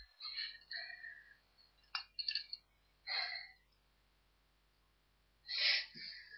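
A few short, soft rustling and shuffling sounds with a sharp click about two seconds in, from a person moving about and handling things close to the microphone.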